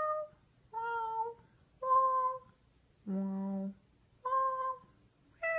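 Corgi puppy making a series of short, high-pitched whining howls, about one a second, each held for about half a second. One call midway is lower and rougher.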